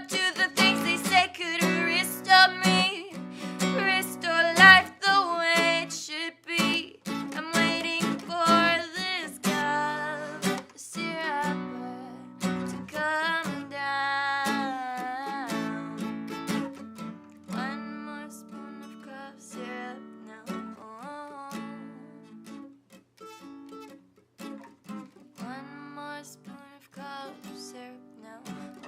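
Acoustic guitar strummed, with a voice singing long wordless notes over it. The playing grows steadily quieter and sparser through the second half.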